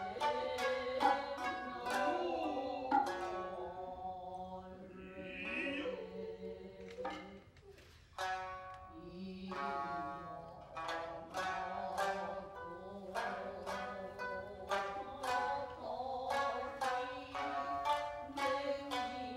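Japanese traditional music: a shamisen plucking a quick run of notes with a singer's voice over it, with a short lull about eight seconds in before the plucking resumes sharply.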